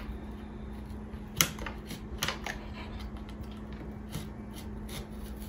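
Rolled paper money in plastic bags being pushed and fitted into a round cardboard box: a few light clicks and rustles, the sharpest about a second and a half in, over a steady low hum.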